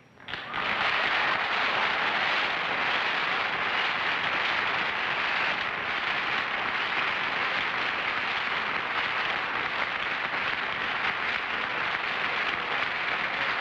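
Studio audience applauding steadily, starting about half a second in.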